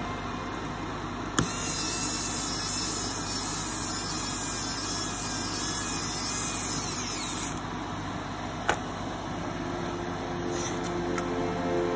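Aerosol can spraying in one long hiss of about six seconds, with a few light clicks after it.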